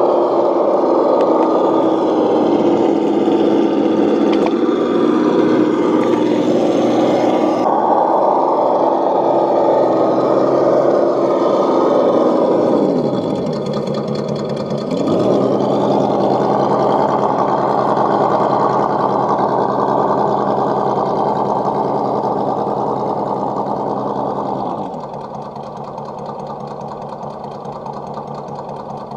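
Radio-controlled crawler truck's electric motor and geared drivetrain whining steadily as it drives. The pitch dips and recovers twice as it slows and speeds up around halfway through, and the sound grows quieter near the end as the truck moves away.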